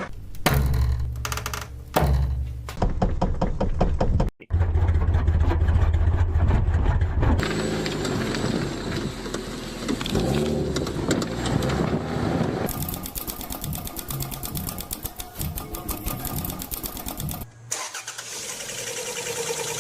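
A run of short car-engine clips cut one after another: an engine cranking and starting, and engines running, one with a fast, even ticking or knocking.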